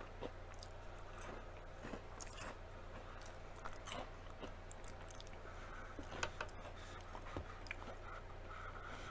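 Close-miked chewing and crunching of deep-fried kale: a scatter of small crisp crackles over a low steady hum.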